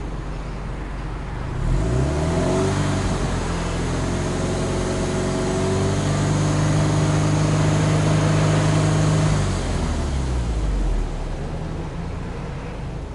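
Subaru Impreza WRX STI's turbocharged flat-four boxer engine, heard at the tailpipe, free-revved while parked: it rises from idle about two seconds in, holds at steady raised revs for several seconds, then drops back to idle near the end.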